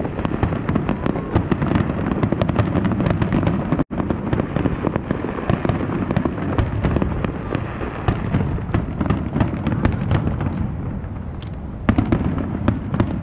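Fireworks display: aerial shells bursting in quick succession with a dense crackle between the bangs. The sound cuts out for an instant about four seconds in, and a sharper cluster of bangs comes near the end.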